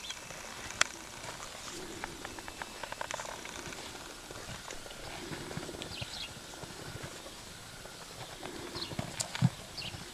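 Paint horse's hooves shifting and stepping on a row of rubber tires and in snow as it steps down off them: scattered soft thuds and clicks, with two sharp knocks, one about a second in and a louder one near the end.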